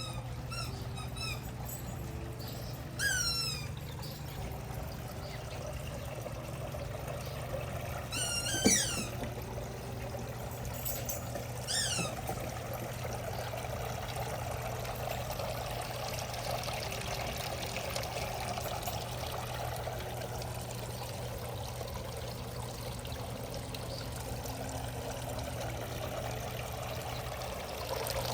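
Water running and trickling steadily over a low hum. Small birds give short, falling chirps several times in the first half; the loudest comes about nine seconds in.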